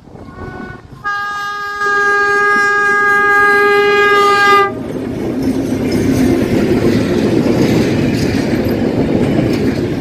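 Diesel locomotive horn: a brief faint toot, then one long blast lasting about three and a half seconds that cuts off abruptly. Then the train's diesel locomotives pass close by, their engines and wheels on the rails making a loud, steady rumble.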